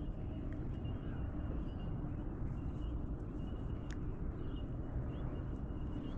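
Open-air ambience on the water: a steady low rumble with faint high chirping calls above it, and a single small click about four seconds in.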